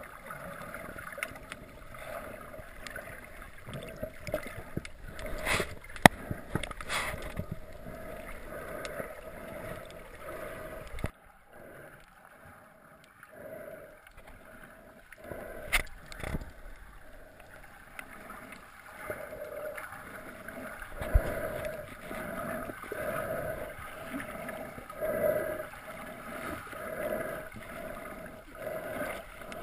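Muffled underwater sound picked up by a camera held below the surface: a steady wash of water noise with a few sharp knocks. In the second half the swishing pulses about once a second.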